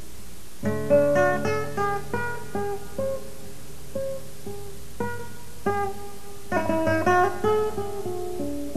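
Acoustic guitar music: a held chord, then picked single notes starting under a second in, with quick runs of notes.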